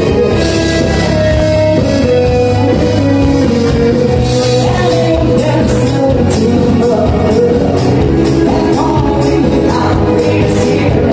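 A live band playing a song with a singer, loud and steady, with drums keeping an even beat.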